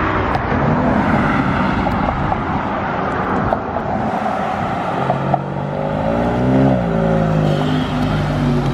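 Vehicles driving past on a road, among them a pickup truck, engines running steadily; about six seconds in one engine note rises and then falls away.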